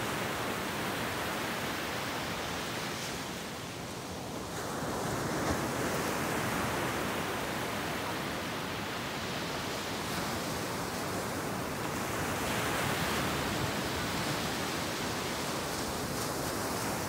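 Ocean surf breaking and washing up the beach, a steady rush of water with a slight lull about four seconds in.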